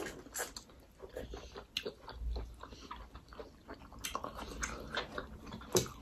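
Close mouth sounds of people chewing momo dumplings: soft wet clicks and smacks, scattered and irregular, with one sharper click near the end.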